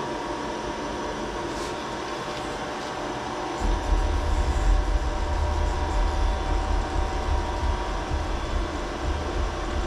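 Steady electrical and mechanical hum of a CNC mill standing by, with a fixed whine near 1 kHz. About three and a half seconds in, a deep low rumble starts and carries on under the hum.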